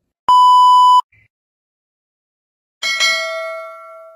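A single loud electronic beep, one steady tone lasting under a second. About three seconds in come a click and a bright notification-bell ding that rings out and fades: the click-and-bell sound effect of a subscribe-button end screen.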